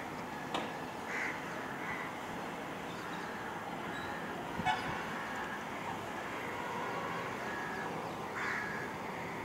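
Steady outdoor hum of distant traffic, with a few short vehicle horn toots. There is a sharp brief sound about halfway through, the loudest moment.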